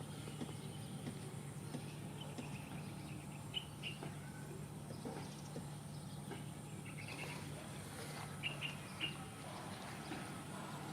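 Faint bird chirps: a few short high calls scattered through, over a steady low background hum.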